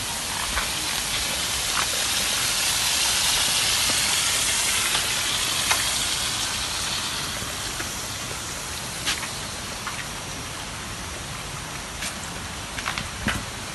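Steady rush of running water, a hiss that swells a few seconds in and then eases, with a few light knocks.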